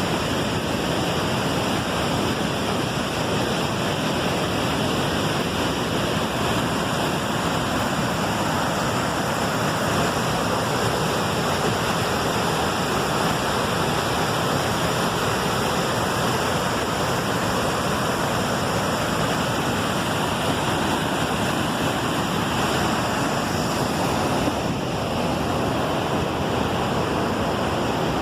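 Waterfall rushing: several falls of water pouring in a steady, loud roar of water noise.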